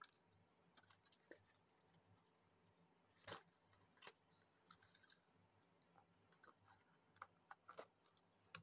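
Faint, irregular clicks and light rattles of metal paper clips inside a small cardboard box as it is opened, picked through and closed. The loudest click comes a little over three seconds in, with a quick run of clicks near the end.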